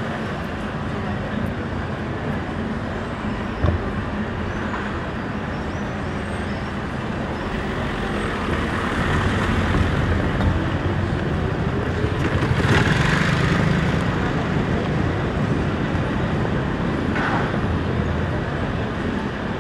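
City street traffic going by, swelling for several seconds in the middle as a vehicle passes close. There is one short sharp knock a few seconds in.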